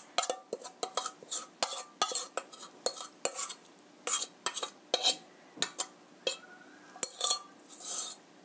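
A metal spoon scraping and clinking against the inside of a stainless steel mixing bowl as batter is scraped out into a frying pan. It makes irregular sharp taps with brief ringing and a few short scrapes.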